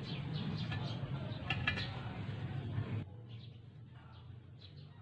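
Small birds chirping in short, high calls over a steady low rumble that cuts off abruptly about three seconds in.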